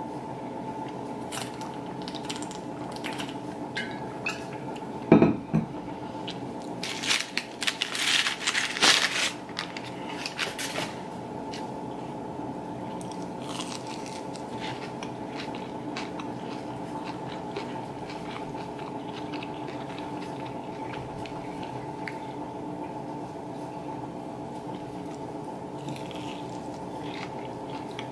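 A thud about five seconds in, then a few seconds of crunchy bites into a McDonald's hash brown, followed by quieter chewing. A steady low hum runs underneath.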